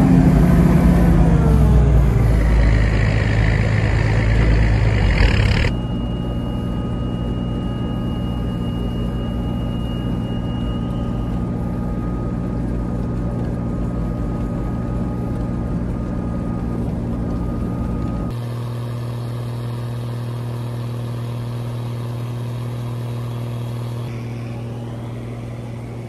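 Massey Ferguson 860 combine running steadily while harvesting: its diesel engine and threshing machinery, heard from inside the cab. The sound changes abruptly about six seconds in and again about eighteen seconds in, quieter after each change.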